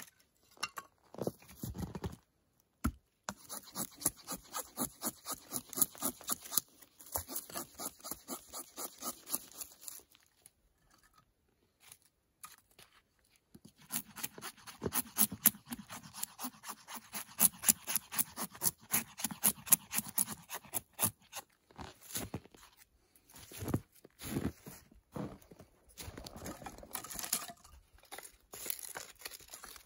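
Knife shaving thin curls off a split stick of dry firewood to make feather sticks: runs of quick scraping strokes, a few a second, with a pause in the middle, then a few separate knocks of wood near the end.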